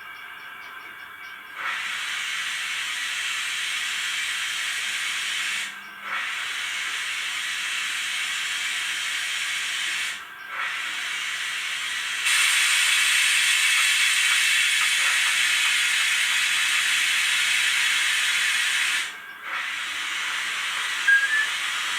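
Steam hiss from the sound decoder of a Piko model steam locomotive: a steady hiss that cuts out briefly three times and grows louder about twelve seconds in.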